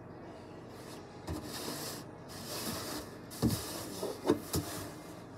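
A plastic milk jug handled close to the microphone: rubbing and scraping, then a few dull knocks a little past the middle.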